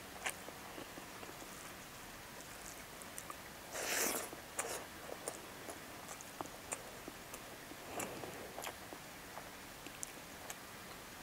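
Close eating sounds of rice, egg and curry being eaten by hand: soft chewing and small wet mouth clicks, with a brief louder noisy rush about four seconds in and a weaker one near eight seconds.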